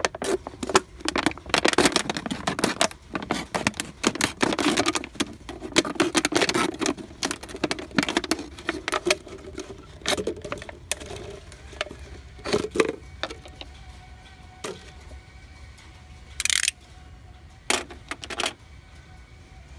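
Crackling and clicking of a plastic bottle being cut and handled to make a funnel, dense for the first half and then coming as scattered sharp clicks.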